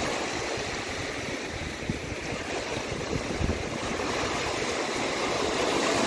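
Small surf waves breaking and washing up onto a sandy beach: a steady rushing wash that grows louder toward the end as a wave comes in.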